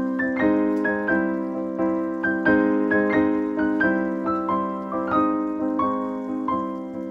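Background piano music: a gentle melody of single struck notes, a new note every half second or so, each ringing out and fading.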